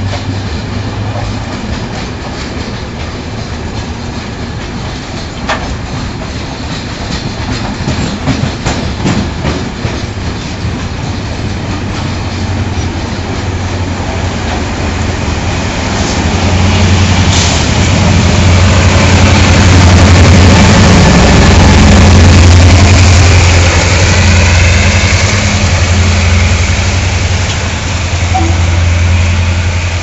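Ore freight train's covered hopper wagons rolling past, wheels clacking over the rail joints. About halfway through, a locomotive's deep steady engine hum swells and becomes the loudest sound.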